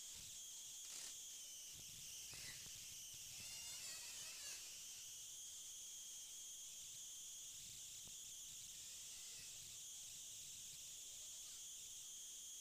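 Near silence, apart from a faint, steady high-pitched chorus of insects.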